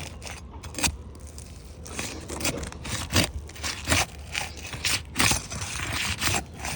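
Steel shingle bar scraping and prying under an old asphalt roof shingle to break its seal, in a run of irregular short scrapes and cracks. The shingle is brittle and crumbling as it is lifted.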